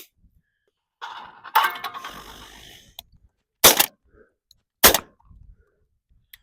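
A clattering launch with a sharp clack, then two shots from a Benelli Super Black Eagle 3 semi-automatic shotgun about a second apart.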